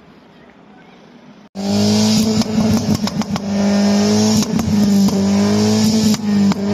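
Peugeot 208 hatchback's exhaust running loudly at a steady, held note, dipping briefly a few times, with short crackles through it. It cuts in abruptly about a second and a half in, after a faint steady hiss.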